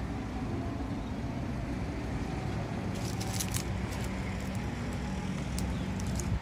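Steady low outdoor rumble, with a few light clicks about three seconds in and again near the end.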